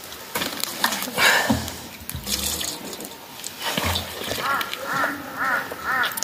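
Water splashing out of a plastic jerrycan as a man rinses his mouth with handfuls of it, then a run of about five short pitched throat sounds, roughly two a second, near the end.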